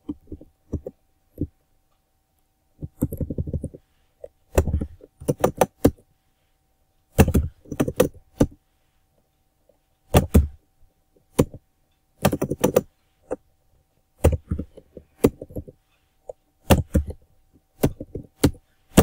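Computer keyboard typing: quick runs of sharp keystroke clicks broken by short pauses.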